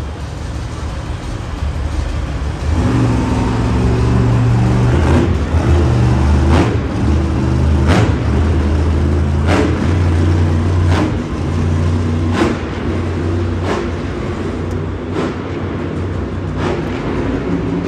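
A monster truck's engine running and revving as it drives across the dirt, mixed with loud arena music that has a heavy drum hit about every second and a half.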